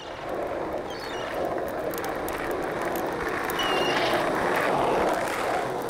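Skateboards rolling steadily on pavement, a continuous wheel rumble that swells slightly toward the end.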